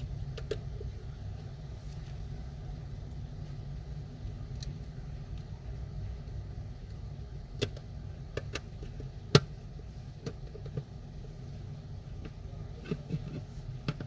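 Light clicks and taps of small tools and phone parts being handled during an iPhone 6S battery replacement, scattered over a steady low rumble; the sharpest tap comes about nine seconds in.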